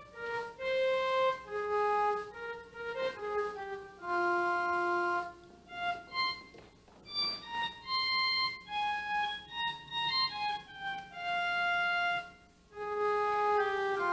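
Pipe organ playing a slow melody of single held notes, phrase by phrase, with a brief pause shortly before the end.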